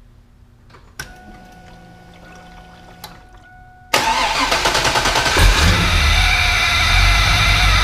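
An engine with a Magnuson 2300 supercharger starts suddenly about four seconds in and settles into a steady idle. Before it, a click and a faint steady whine.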